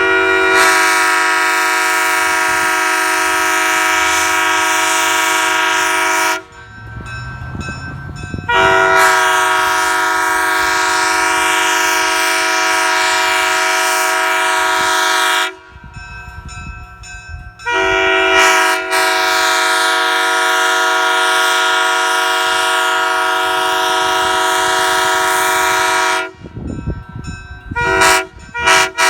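Leslie Supertyfon S3K three-chime air horn with its 31, 37 and 48 bells, sounding a loud steady chord in three long blasts of about six to eight seconds each, then two short blasts near the end.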